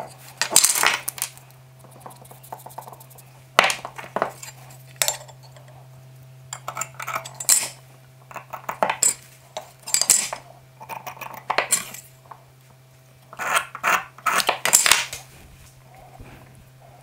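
Steel axe head, steel square and metal scriber handled on a wooden workbench: irregular metal clinks and taps as the tools are set down and picked up, with short scratches of the scriber marking the head. A steady low hum runs underneath.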